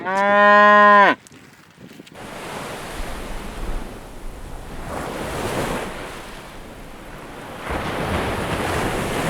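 A cow lets out one loud, steady moo about a second long. After a short lull, a rushing noise sets in, swelling and easing in slow surges.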